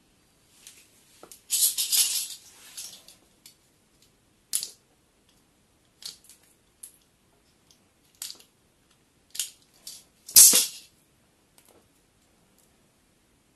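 Rustling and crinkling of electrical wires being handled and twisted together by hand, in short irregular bursts, the loudest about ten seconds in.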